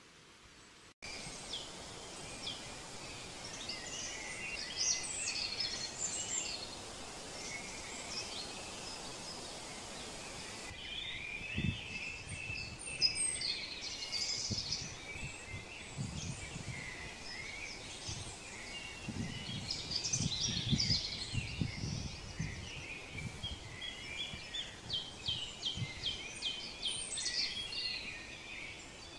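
Outdoor ambience of many songbirds singing at once, with quick chirps and trills over a steady background hiss. Low rumbles come and go near the middle and again later on.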